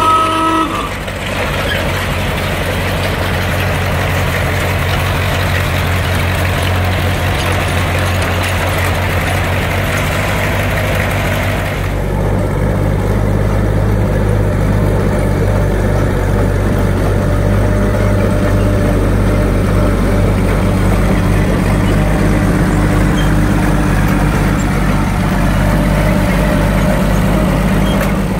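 A Cletrac crawler tractor's engine running as it moves, with a short tooting tone right at the start. About twelve seconds in, the sound cuts abruptly to the 1928 Lombard tracked dump truck's engine running steadily, deeper and lower, as it crawls on its tracks.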